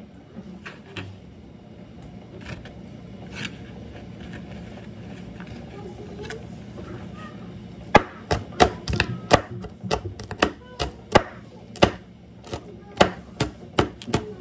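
Kitchen knife chopping vegetables on a cutting board. There are a few light taps at first, then from about eight seconds in a quick, even run of sharp chops, about three a second.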